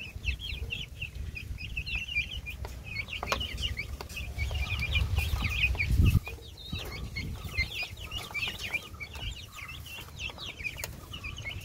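A flock of young chickens peeping and chirping at a feeding trough: many short, high calls overlapping in quick succession throughout, over a low rumble that swells in the middle.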